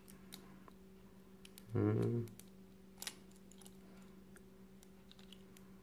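Light plastic clicks and taps as a small toy figure is pressed into a plastic Hot Wheels Wheelie Chair toy, with a sharper click about three seconds in. A brief murmur of voice comes about two seconds in, over a faint steady hum.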